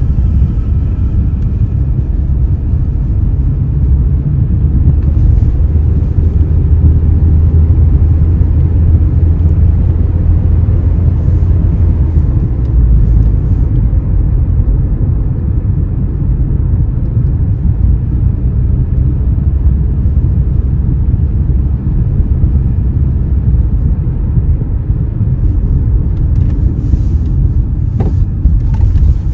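Road noise inside a moving car: a steady low rumble of tyres and engine.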